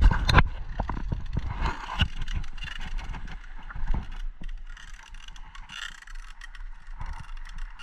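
Mountain bike rolling over a bumpy dirt trail, its parts clattering with sharp knocks as it bounces. The knocks are loudest in the first moment, and a few more come about two and four seconds in, over a quieter rattle of rolling.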